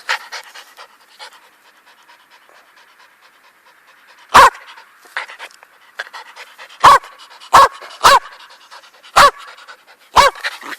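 Jack Russell terrier panting, broken by six short, loud, sharp sounds from about four seconds in, the last four coming roughly one to two seconds apart.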